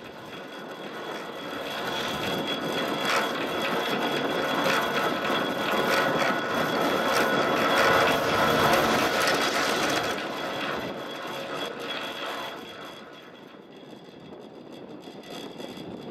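Gondola lift running over a tower's sheave wheels as the cabin passes the tower: a mechanical rumble with rapid clicking. It swells to its loudest about eight seconds in, then fades.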